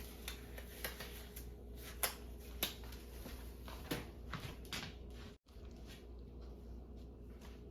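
Scattered light clicks and taps of kitchen handling, a handful spread over several seconds, over a steady low hum, with a brief cut to silence about five seconds in.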